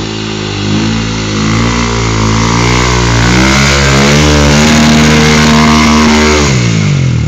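Honda TRX400 quad's single-cylinder four-stroke engine revving hard close by as the quad is spun around. The pitch climbs and wavers, is held highest for about two seconds, then drops back near the end.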